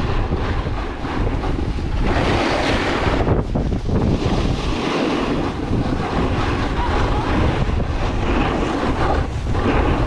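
Wind buffeting the action camera's microphone at speed, over the scraping hiss of a snowboard sliding and carving on packed snow, rising and falling through the turns.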